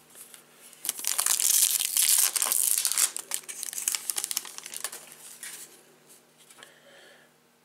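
A Topps Gallery baseball card pack wrapper being torn open and crinkled by hand, loudest for about two seconds, then tapering to fainter rustling.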